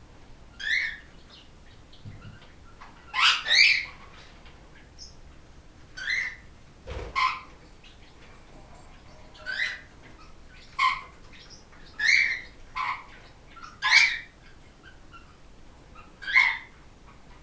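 Pet parrots giving about a dozen short, sharp calls, irregularly spaced a second or two apart, with the loudest about three and a half and fourteen seconds in.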